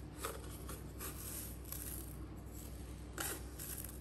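Faint kitchen handling sounds as seasoning is spooned out: a few light clicks and rustles of a spoon against containers, over a low steady hum.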